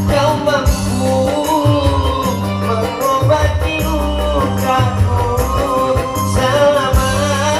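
Music with a steady bass beat and a wavering melody line.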